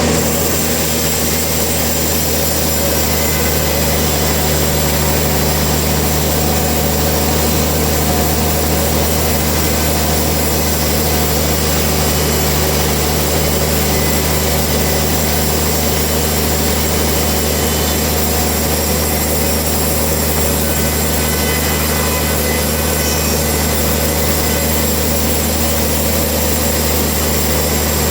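Sawmill machinery running steadily: a constant low engine-like hum under an even hiss, with no change in pace.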